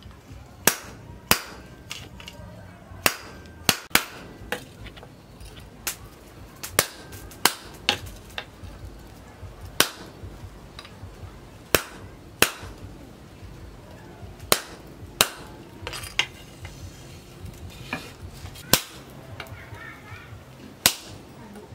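Hand-hammer blows on a red-hot steel knife blade on a post anvil: sharp metallic strikes at an irregular pace, roughly one every half second to a second.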